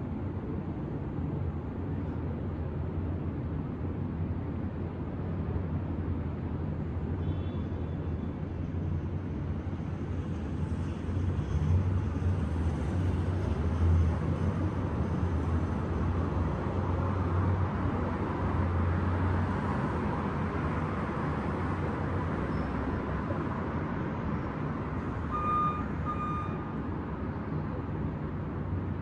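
City street traffic with a steady low rumble. Traffic noise swells up and fades over the middle stretch, and two short beeps sound close together near the end.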